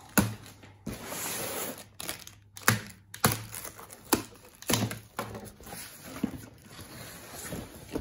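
Box cutter slitting packing tape on a cardboard box, with the cardboard flaps scraping and rustling as the box is opened and a string of sharp knocks and taps.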